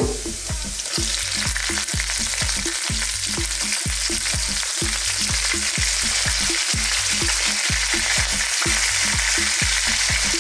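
Pork belly cubes sizzling in hot oil with garlic and ginger in a wok; the sizzle thickens and grows louder about a second in as the meat goes into the pan.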